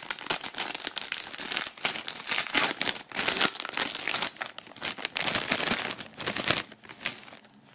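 Clear plastic sleeve crinkling as a quill pen is pulled out of it and the empty sleeve is handled: a dense run of crackles that thins out near the end.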